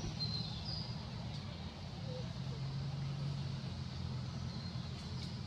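Steady low rumble of a running engine, with a few short faint high chirps in the first second.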